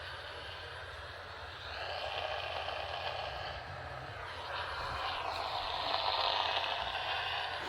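AM radio receiver tuned to a weak distant station on 830, giving a hiss of static that swells louder and fades over a steady low hum.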